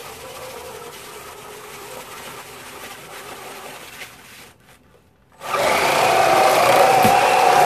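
Electric drive and plastic tracks of a 3D-printed RC snowcat whirring as it drives under a heavy load of bottled water. The drive runs steadily, dips briefly about four and a half seconds in, then comes back much louder with a steady whine as the vehicle drives and turns.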